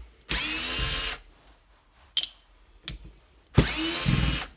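Cordless drill-driver motor running in two short bursts, each under a second and about three seconds apart, with a couple of light clicks between them, typical of backing out screws during a teardown.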